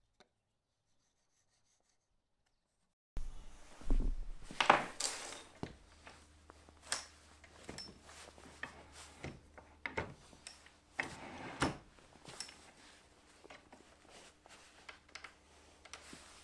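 Workshop handling noise at a cast-iron bench vise: irregular clunks, clicks and rubbing as a wooden-handled knife is set between the jaws and the vise is worked. A steady low electrical hum sits underneath, and all of it starts about three seconds in after dead silence.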